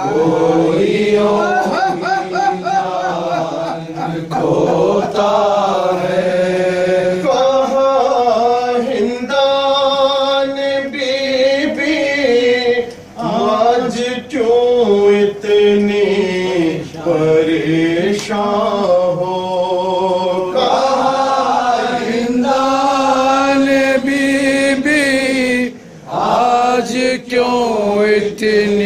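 Men's voices chanting a noha, the Shia lament for Muharram, in Urdu over a microphone, a slow wavering melody held in long lines with two brief breaks for breath.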